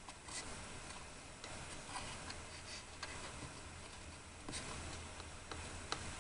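Light, irregular clicks and taps of small hard objects being handled, with a sharper click near the end, over a low steady hum.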